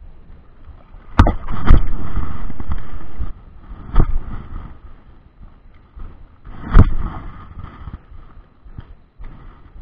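Handling noise on a body-worn action camera: four sharp knocks, with a loud stretch of rubbing noise between the first two knocks and a little past three seconds, then stopping suddenly. Wind on the microphone underneath.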